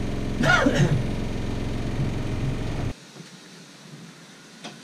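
A steady low machine hum, with a brief gliding sound about half a second in, that cuts off abruptly about three seconds in. What follows is quiet, with a couple of faint clicks as a thin sensor wire is handled.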